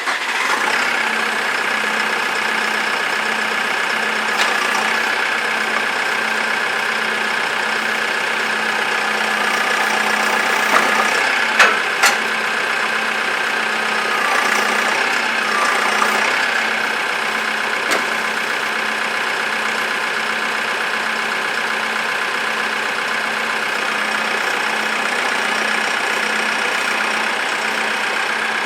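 Front-loader tractor's engine, just started, running steadily at idle with a faint regular beat. A few short metallic knocks sound around 11 to 12 seconds in and again near 16 and 18 seconds.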